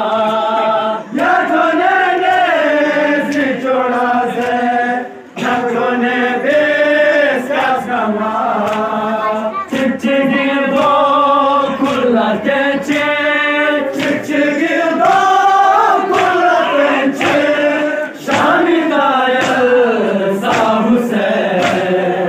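A group of young men chanting a nauha, a Shia mourning lament, in unison, sung as a continuous melodic chant. Sharp slaps, from hand chest-beating (matam), come through at irregular intervals.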